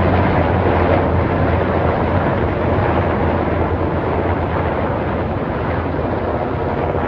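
A formation of five helicopters flying overhead: a loud, steady rotor and engine drone with a deep hum, slowly fading as they pass.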